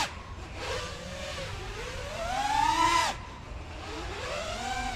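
FPV quadcopter's brushless motors and propellers whining, the pitch rising and falling with the throttle. One long climb peaks about three seconds in and cuts off suddenly as the throttle drops, then the whine swells again.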